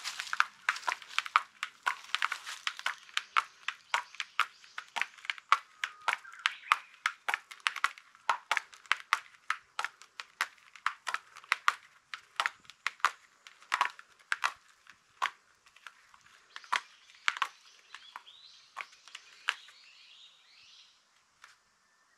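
A cat sharpening its claws on an interlocking foam floor mat: an irregular run of sharp, scratchy clicks as the claws catch and rip at the foam, thinning out over the last few seconds.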